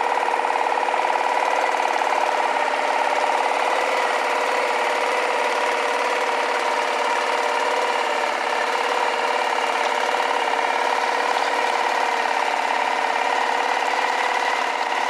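Boat motor running steadily at a constant speed, a fast even drone with no change in pitch.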